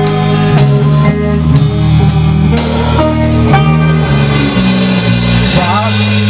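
A rock band playing live: electric guitars hold and change chords over drums, loud. A man's singing voice comes in near the end.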